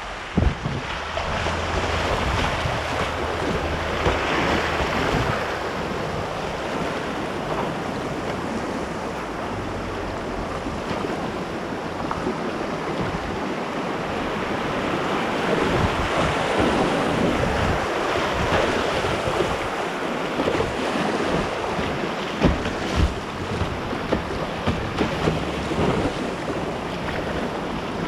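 Class II whitewater rapids rushing steadily, with wind buffeting the microphone and scattered low thumps.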